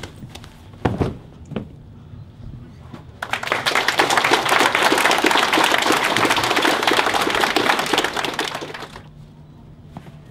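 Audience clapping for about six seconds, starting about three seconds in and fading away near the end, after a couple of short thuds.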